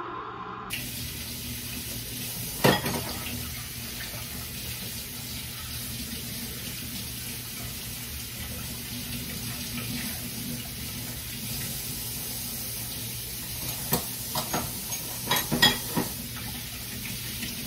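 Steamed milk pouring from a stainless steel pitcher into a glass mug of espresso, over a steady low hum. There is one sharp knock about three seconds in and a few clinks and knocks near the end.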